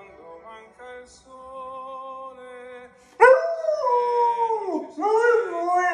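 A German Shepherd puppy howling along to a recording of an opera tenor: about three seconds of the singing alone, then a loud howl that starts suddenly and slides down in pitch over about a second and a half, followed at once by a second howl.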